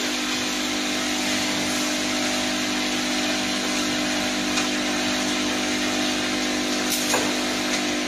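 Automatic servo-driven piston filling and capping line running: a steady machine hum over an even hiss, with a faint click or two near the end.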